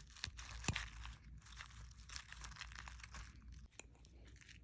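Faint crinkling and tearing of packaging with scattered small clicks as a product box is opened, busiest for the first three seconds and then quieter.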